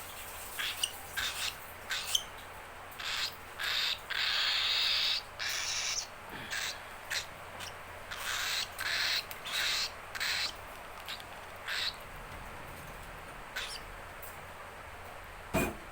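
Baby cockatiel giving raspy, hissing food-begging calls over and over, each a short harsh burst and one held for over a second: a hungry chick calling to be fed. A single knock comes near the end.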